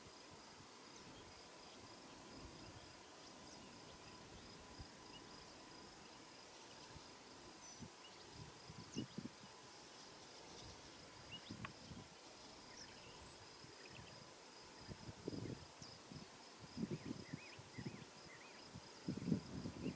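Faint, steady high-pitched insect trill, with a few soft low thumps in the second half.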